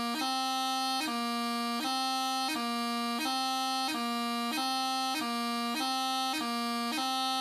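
Highland bagpipe practice chanter playing a slow exercise that alternates between two neighbouring notes, low A and B, about every two-thirds of a second. A quick D-gracenote cuts in at each change of note.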